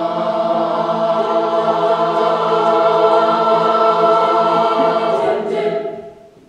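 Mixed choir holding a final sustained chord. The chord is released about five and a half seconds in and dies away in the hall's reverberation.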